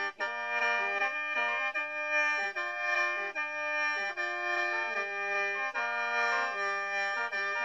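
Isan folk music played on the khaen, a bamboo free-reed mouth organ: sustained chords with held upper notes and a lower melody stepping up and down.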